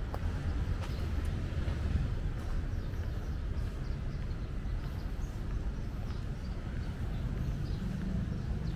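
Street ambience: a steady low traffic rumble with a faint wash of city noise above it.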